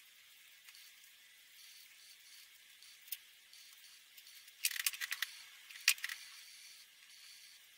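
Faint scratching of a felt-tip marker on paper, then a clatter of small plastic clicks and one sharp snap as the markers are handled and swapped, the snap being a marker cap.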